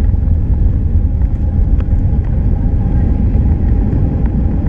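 Cabin noise inside a Boeing 737-300 on its landing rollout: a loud, steady low rumble from the aircraft rolling down the runway, with a faint steady whine above it and a few light clicks.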